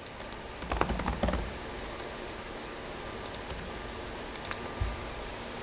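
Keys clicking on a computer keyboard in three short bursts.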